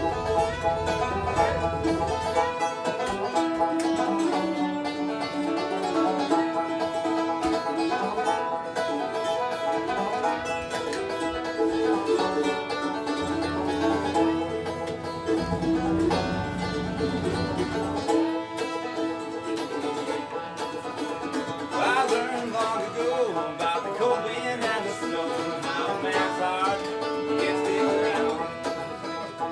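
Bluegrass string-band music led by banjo picking, with guitar.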